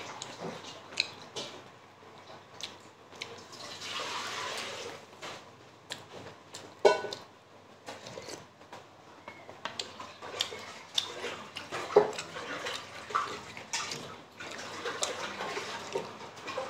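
Close-up eating sounds of steamed momos and soup: wet chewing and lip smacks, slurps from a spoon, and irregular sharp clicks, the loudest two about seven and twelve seconds in.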